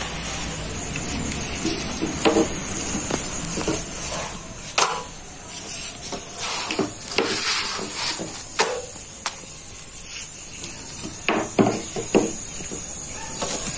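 Yufka flatbread being handled and turned on a hot sac griddle: scattered light knocks, taps and rustles, a few sharper ones near the end, over a steady faint hiss.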